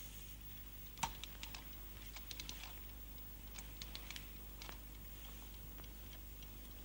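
Small, irregular clicks and light taps of an object being handled, the sharpest about a second in, over a faint steady low hum.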